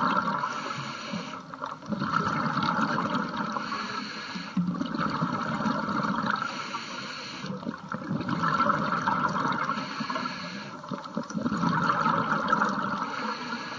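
Scuba diver breathing through a regulator, heard underwater: breath after breath with bubbling, each cycle swelling and fading about every three seconds.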